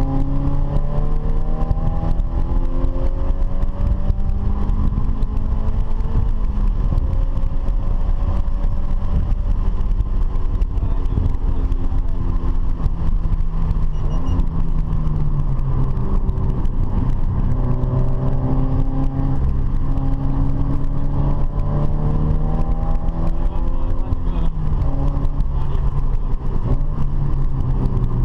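Car engine running hard, its pitch climbing slowly as it accelerates and dropping back several times, over a steady low rumble of road and wind noise.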